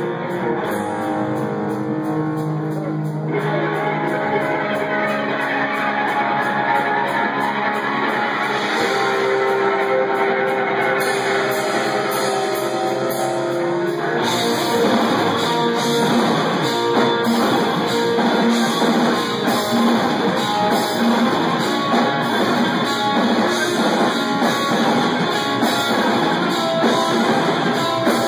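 Live rock band playing, with electric guitars holding sustained notes at first; about halfway through the full band comes in, denser and a little louder.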